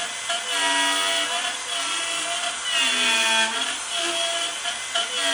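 CNC router's spindle router cutting pressure-treated pine at 250 inches per minute: a steady high whine over the cutting noise. Lower machine tones rise and fall about every second and a half as the gantry moves back and forth across the cut.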